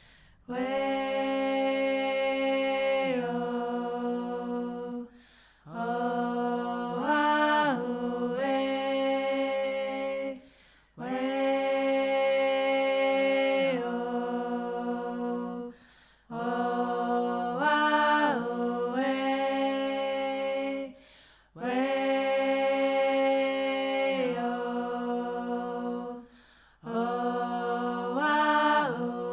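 Slow, chant-like vocal music without instruments: long held sung notes in phrases of about five seconds, each followed by a brief pause, with the pitch stepping up and down partway through the phrases.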